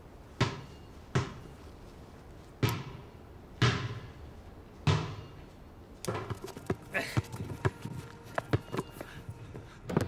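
Basketball bouncing on a hard surface: five single bounces, one to one and a half seconds apart, then a busier run of quicker, sharper knocks and taps in the last few seconds.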